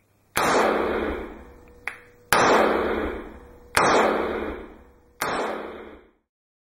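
Four shots from a Korth Sky Marshal 9 mm Luger revolver, about a second and a half apart, each with a long fading echo.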